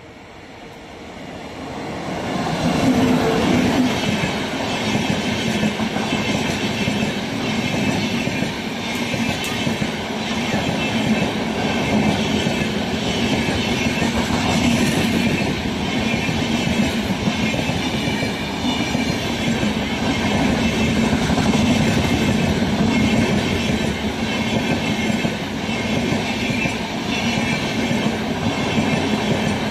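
A train passing close by at speed. The rumble swells in over the first few seconds, then holds steady with a rhythmic clickety-clack of wheels over rail joints as the coaches go by.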